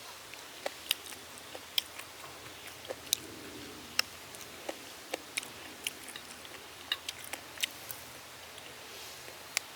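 Chewing and biting on fried pig ear with peanuts: irregular sharp crunches, about two a second.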